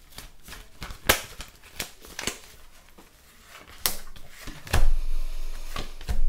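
Cards being handled close to the microphone: a run of light clicks, flicks and rustles, with two dull thumps against the desk or mic near the end.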